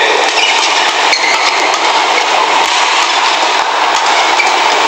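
Badminton doubles rally: sharp clicks of rackets striking the shuttlecock over a steady, loud hubbub of arena crowd noise.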